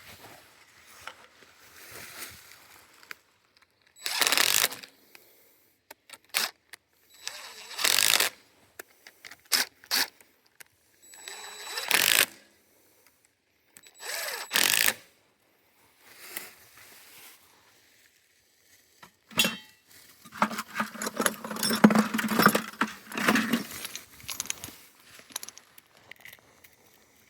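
Hand-work noises, scraping, rubbing and clinking, coming in short bursts of about a second several times, then a longer rougher stretch with a low hum under it near the end.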